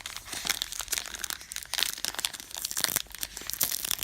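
Plastic wrapping on trading-card packaging crinkling and crackling as it is handled and torn open, in a dense run of small crackles.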